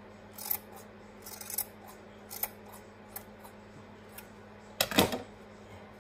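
Scissors snipping through wool yarn, trimming a pom-pom, with short sharp cuts about once a second. A louder clack near the end.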